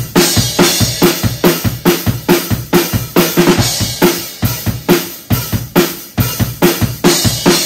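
Acoustic DW drum kit played in a steady groove, with kick drum and snare hits under cymbals, in an even beat of about two strong hits a second.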